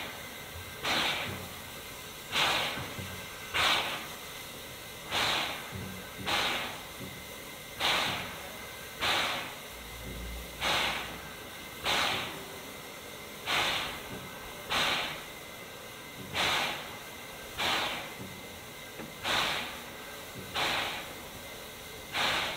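Steam locomotive 60007 'Sir Nigel Gresley', an LNER A4, giving short hissing puffs of steam at a steady rhythm, about one every second and a half.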